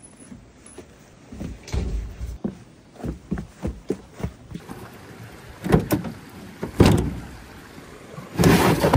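Rubber-booted footsteps thumping down wooden steps, then clunks and a louder clatter near the end as things are handled at a pickup truck's bed.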